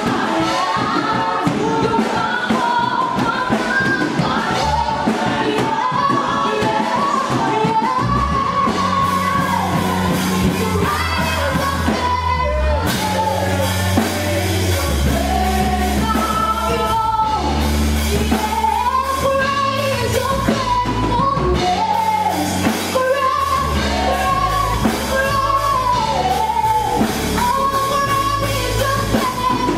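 Gospel-style church worship song: several voices singing over a band with drums. A deep bass line comes in about eight seconds in.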